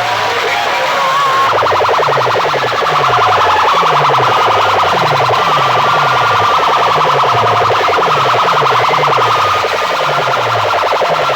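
A rapidly pulsing electronic alarm tone starts about a second and a half in and stops near the end. Under it a low falling note repeats about twice a second.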